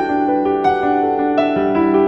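Background music: a slow, soft piano melody of sustained notes.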